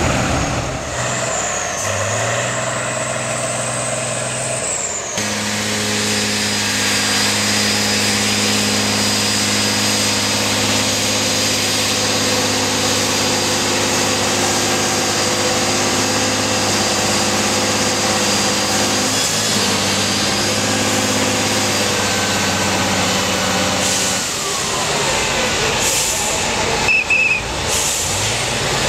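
Heavy 8x8 off-road trial truck's diesel engine working under load on a climb, held at steady high revs for long stretches, then dropping off about 24 seconds in.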